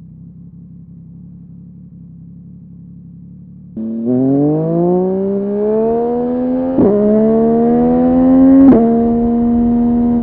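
Yamaha MT-09 three-cylinder engine through a Dominator HP8 aftermarket exhaust muffler. It runs low and steady, then the throttle opens about four seconds in and the exhaust note climbs in pitch. The climb is broken twice by quick upshifts, then the engine holds steady near the end.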